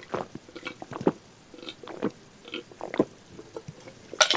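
A man gulping a drink from a glass mug: a string of short, separate swallows, roughly two or three a second.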